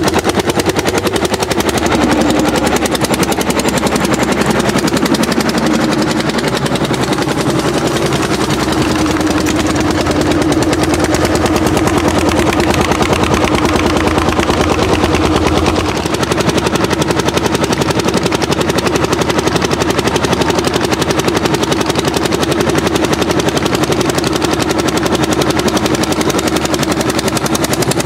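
Orsi Argo hot bulb tractor's single-cylinder two-stroke engine running hard under load while pulling a plough: a loud, steady run of rapid, even exhaust beats.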